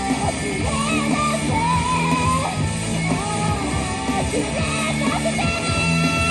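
A rock band playing live, with a lead line that slides and bends in pitch over the full band.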